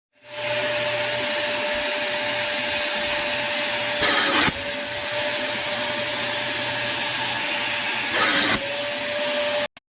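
Vacuum cleaner motor starting up and running steadily, a rush of air with a constant whine. Twice, for about half a second, the rushing grows louder and the whine dips briefly. It cuts off abruptly near the end.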